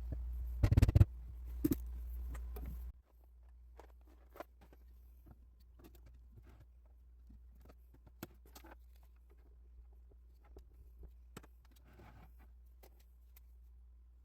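Kitchen handling noises while cooking: a few loud clatters over a low hum that stops abruptly about three seconds in, then faint, scattered taps and clicks.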